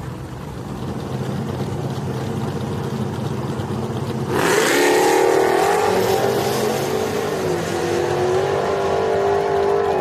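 Drag-racing trucks, one a Chevrolet TrailBlazer SS with its 6.0 L V8, hold a low idle at the starting line. About four seconds in, they launch at full throttle down the quarter mile. The engine note climbs and drops back at each upshift, about three seconds later and again near the end.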